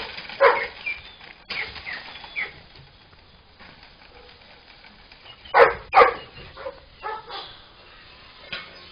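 Dogs barking: a few barks in the first two and a half seconds, two loud barks close together about six seconds in, then several softer ones.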